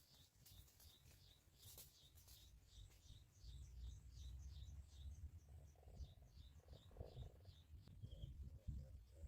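Small bird chirping faintly in a quick, steady series of short high notes, several a second, thinning out near the end, over a low rumble.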